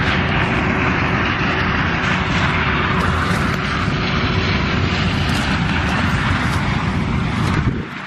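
Steady drone of a combine harvester working close by, mixed with heavy wind rumble on the microphone; it falls away abruptly near the end.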